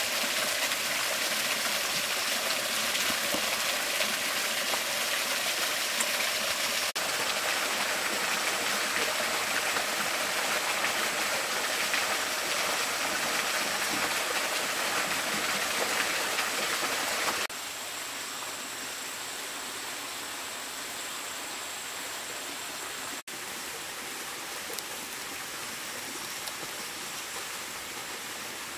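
Steady rush of a stream and waterfall, dropping to a softer level about two-thirds of the way through.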